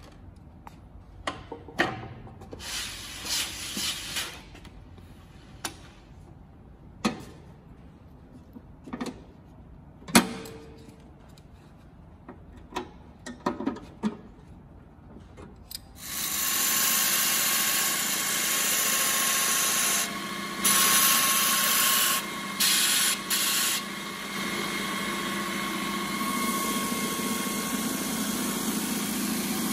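Clicks and knocks of metal parts being handled as the abrasive belt and top cover are fitted on a BS-100 belt linisher, the loudest a sharp knock about ten seconds in. Just over halfway through, the linisher's electric motor starts suddenly and runs steadily with the belt, a hum with a steady whine and a few brief dips.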